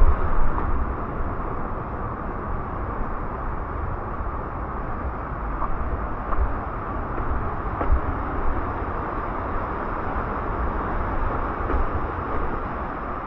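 Steady rushing water of a mountain stream, a constant noise with a few faint clicks.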